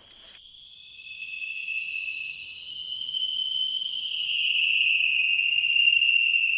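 A steady high-pitched tone with fainter overtones, starting abruptly and slowly growing louder, wavering slightly in pitch.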